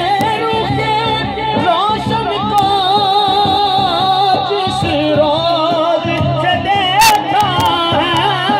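Amplified Sufi devotional singing: a voice holding long, wavering melismatic notes without clear words, over a steady low drone.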